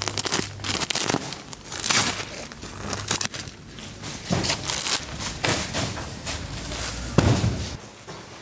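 A plastic-wrapped bag of insulation dragged across the floor, its packaging crinkling and scraping in irregular bursts, with a thump about seven seconds in.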